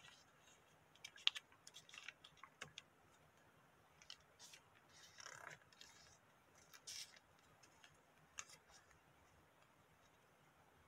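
Faint rustling and crinkling of small sheets of origami paper being folded and creased by hand, with scattered sharp little ticks and a slightly longer rustle about five seconds in.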